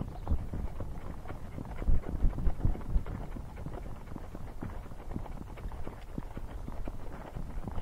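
Hoofbeats of a ridden horse moving along a dirt trail: a busy, uneven run of soft knocks, with a few louder thumps about two to three seconds in.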